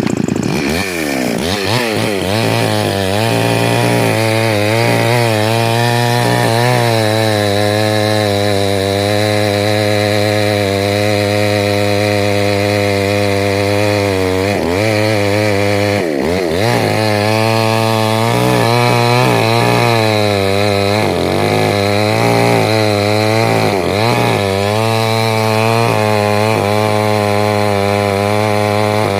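Chainsaw running flat out as it cuts wood, its engine pitch dipping and climbing back several times as the chain bites and frees.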